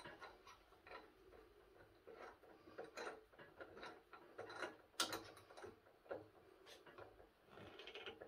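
Faint, irregular metallic clicks and ticks from the chuck of a bench drill press being worked by hand as a drill bit is fitted. The loudest click comes about five seconds in.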